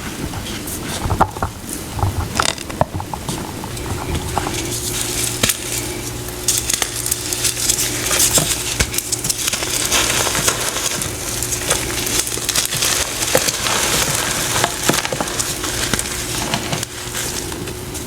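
Crunchy golden paste flowers crackling and crunching close to the microphone: a dense run of sharp crackles and clicks. A faint steady hum runs underneath.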